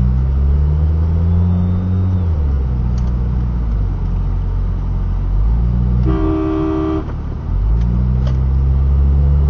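Car engine heard from inside the cabin, pulling away from a stop and rising in pitch, dropping at a gear change about two seconds in. A car horn sounds once for about a second, about six seconds in.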